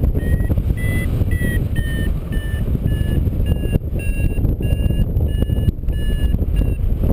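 Paragliding variometer beeping about twice a second, quicker and a little higher in pitch in the first two seconds, then evenly spaced and slightly lower: the climb tone that signals the glider rising in lift. Wind noise rumbles on the microphone underneath.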